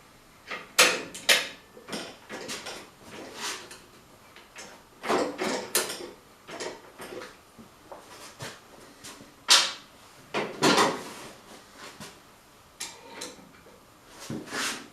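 Irregular clanks, clicks and rattles of metal parts and hand tools being handled and set down, with a few sharp knocks standing out.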